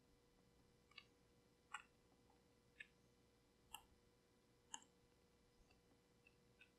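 Near silence with faint computer mouse clicks, about one a second, and a few fainter clicks near the end, over a faint steady hum.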